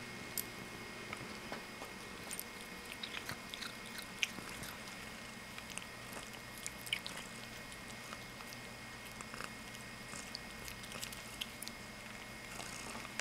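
Siamese cat chewing and biting wheatgrass blades, with irregular small clicks of the bites.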